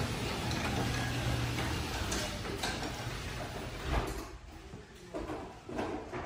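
Garage door opener running, driving a newly installed sectional garage door down its tracks: a steady motor hum that fades out about three to four seconds in, with a short thump near four seconds as the door closes on the floor.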